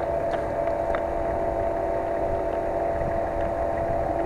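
Engine of a mud-plugging, modified Nissan Patrol running steadily with a constant pitch, the truck bogged in a deep rut.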